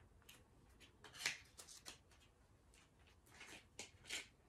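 Faint handling noises of a small cosmetic item, an eyeshadow crayon: a scatter of short clicks and rustles, the loudest about a second in.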